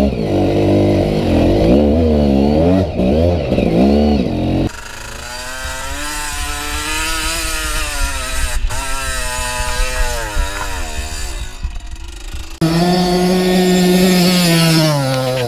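Two-stroke enduro dirt bike engines revving hard and dropping back over and over, the pitch rising and falling as the throttle is worked on a steep climb; the first stretch is the GasGas EC 300. The sound drops suddenly to a quieter engine about five seconds in and jumps back loud a couple of seconds before the end.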